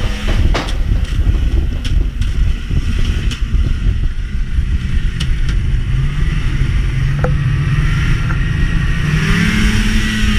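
Fan-cooled two-stroke snowmobile engine running under throttle, with scattered clicks and rattles from the sled. Its pitch settles lower in the middle and climbs again near the end as it accelerates.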